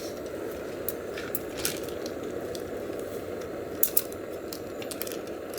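Food sizzling in a hot pan: a steady frying hiss with scattered crackles and pops, two sharper pops just before the four-second mark.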